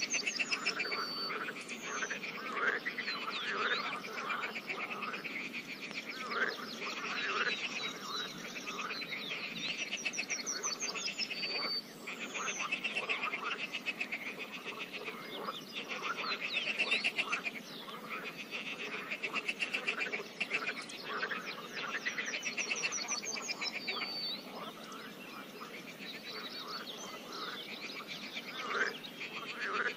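Pond frogs calling in a chorus: overlapping trains of rapid croaks, one after another. A few short whistled notes sound among them.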